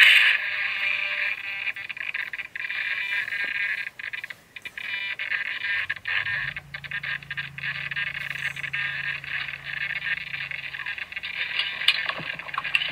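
Blade Nano S3 micro RC helicopter's small electric motors and rotors giving a steady high-pitched whine, with a lower hum joining about halfway through. A sharp knock near the end as a hand handles the phone.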